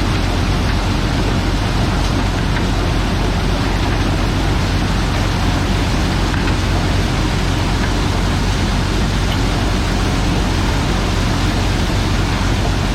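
White 1210 corn sheller running steadily, a loud even machine noise with a low hum underneath.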